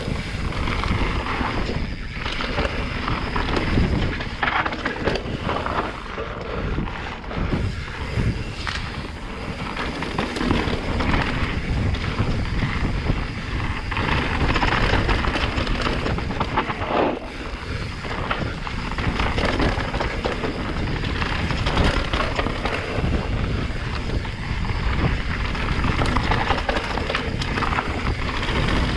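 Santa Cruz Megatower full-suspension mountain bike descending a rough dirt and rock trail at speed: tyres rolling and crunching over stones, with a steady clatter and knocking from the bike over the bumps.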